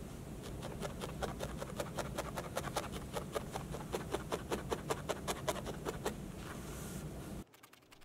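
Barbed felting needle stabbing rapidly and evenly through loose wool roving into a foam board, a soft tick with each poke, several a second, as the wool is tacked into shape. It stops abruptly near the end.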